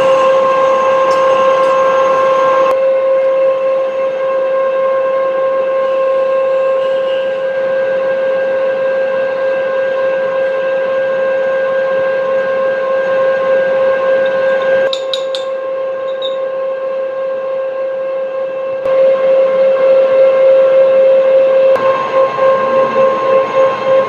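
Metal lathe turning a tin bronze workpiece: a steady whine held at one pitch throughout, over machining noise whose texture shifts several times. A few light clicks come about midway, and the sound pulses near the end.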